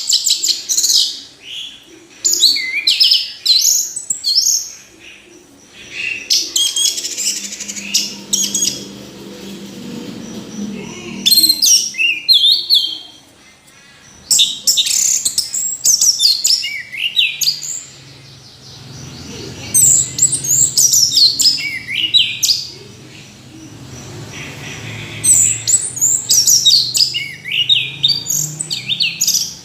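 Orange-headed thrush singing: bouts of rapid, varied whistled phrases, each a few seconds long, with short pauses between them.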